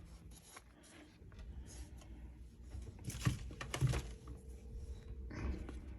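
Faint handling noises from the laptop and charger being set up for a charging test: soft rustles and a few light knocks, two of them firmer a little past the middle, with a brief faint steady hum just after.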